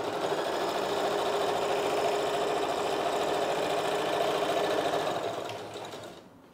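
Sewing machine running steadily, stitching a seam, then slowing and stopping near the end.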